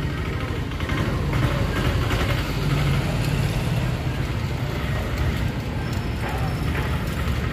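Road traffic: motor vehicles running past, a steady low rumble with no single event standing out.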